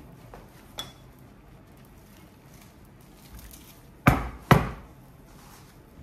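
Two sharp knocks in the kitchen, about half a second apart, a little after four seconds in, with a faint click about a second in; otherwise only low room tone.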